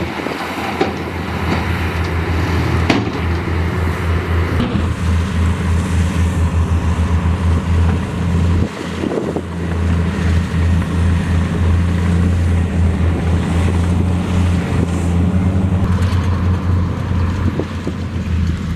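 Heavy diesel engine of construction equipment running loudly and steadily under load, with a low pulsing drone that dips briefly about halfway through.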